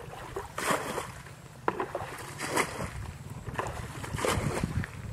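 Dry grass rustling and brushing as someone walks through it, in several short swishes, over a low steady wind rumble on the microphone.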